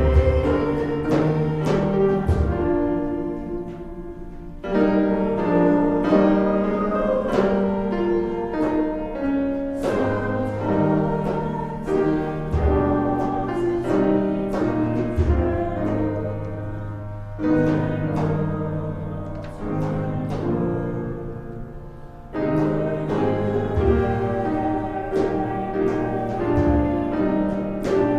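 Slow hymn music led by piano, with sustained chords and low bass notes, played in phrases with short breaks between them.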